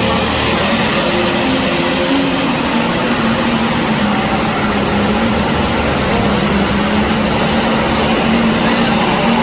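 Big farm tractor's diesel engine at full throttle during a tractor pull, a loud steady run with a high whine above the engine's note that rises slightly in the first second.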